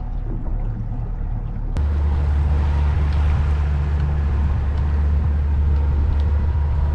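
Outboard motor of a small open boat running with a steady low drone, which starts abruptly about two seconds in; before that, quieter sea and wind noise.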